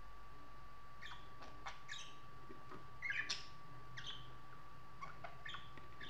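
Budgerigars giving short, sharp chirps and squeaks at irregular intervals, with a louder cluster about three seconds in.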